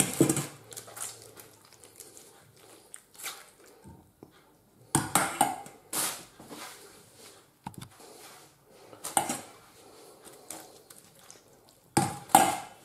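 Stainless steel colander and bowls clinking and knocking together as they are handled, about half a dozen separate sharp clatters with quiet gaps between them, two close together near the end.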